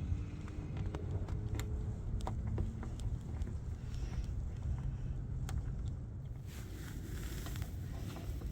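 Plastic trim parts being handled and pressed: scattered light clicks and rustling, over a steady low rumble.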